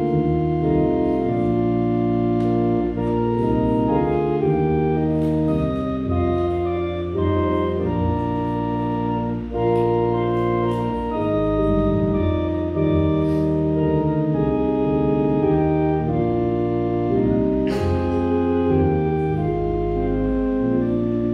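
Organ playing a slow hymn in held, sustained chords that move from chord to chord.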